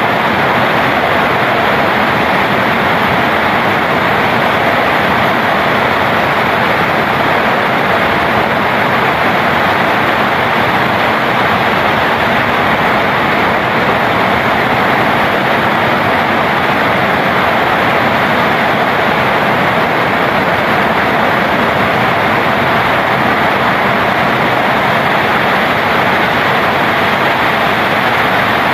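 Heavy rain falling steadily, a constant even hiss that does not change.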